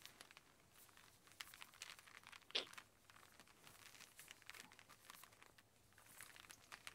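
Near silence: faint room tone with scattered small clicks and crackles, and one brief, slightly louder sound about two and a half seconds in.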